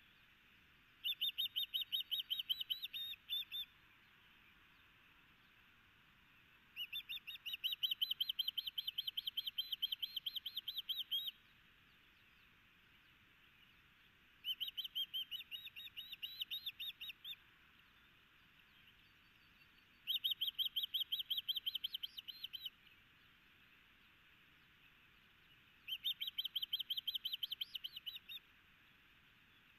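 Osprey calling: five bouts of rapid, high chirps, each run lasting two to four seconds, with pauses of a few seconds between bouts.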